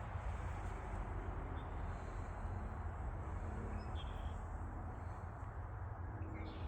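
Steady low outdoor background rumble, with a few faint, short bird chirps.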